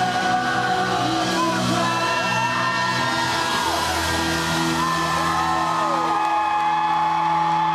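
Live amplified band music with long held chords, recorded from among the audience, with fans whooping and cheering over it.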